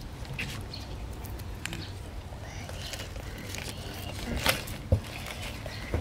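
Hands rubbing coarse salt and chili seasoning onto a whole raw tilapia: soft wet rubbing and scraping, with a couple of sharp ticks about four and a half seconds in.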